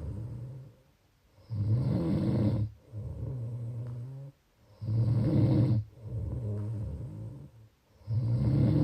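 A person snoring in a slow, regular rhythm, a cycle about every three seconds. Each cycle is a loud snore followed by a softer, steadier one, with a short silent pause before the next. Three loud snores fall in the stretch.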